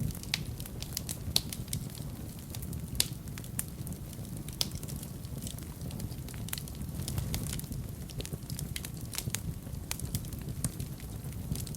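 Wood fire burning in a fireplace: a steady low rumble of the flames with irregular crackles and pops, a few sharper pops standing out.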